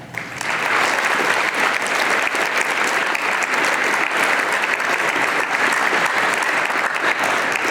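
Audience applauding steadily in a large hall, with many hands clapping at once.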